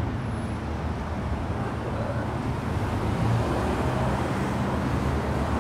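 Steady road traffic noise: a continuous low rumble of cars driving past.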